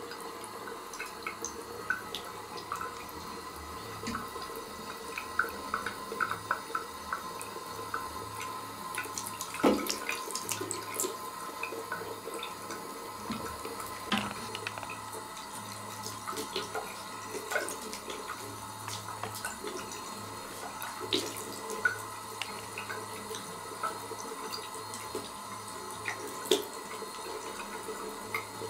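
A thin stream of water running from a bidet tap and splashing into the ceramic bowl: a steady trickling hiss broken by irregular small splashes and ticks, the loudest about ten seconds in.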